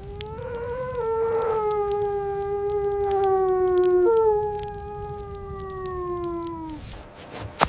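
A wolf howling: two long howls back to back, the first rising a little then sliding slowly down, the second starting higher about four seconds in and falling away until it fades out. A sharp click follows near the end.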